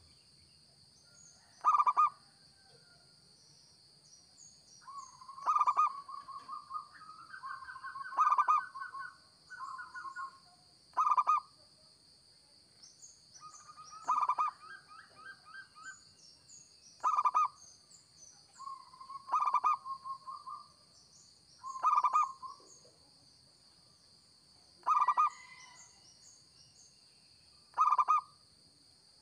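Zebra dove (perkutut) singing: about ten short, loud cooing notes repeated every two to three seconds, with softer rapid trilling coos between them.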